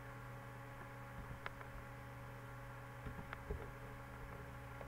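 Steady low electrical hum with a few faint clicks about one and a half seconds and three and a half seconds in, computer mouse clicks while picking a unit from a dropdown list.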